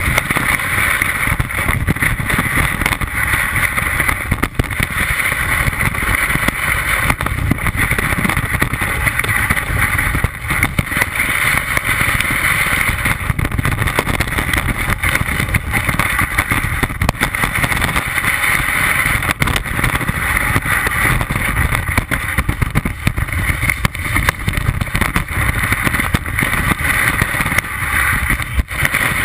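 Telemark skis running downhill through powder snow, heard from a camera mounted on the ski: a continuous loud rush of wind and snow over the microphone with a low rumble, dotted with many small knocks and rattles from the ski and binding.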